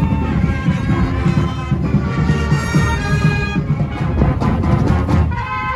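Upbeat background music with brass and a steady beat.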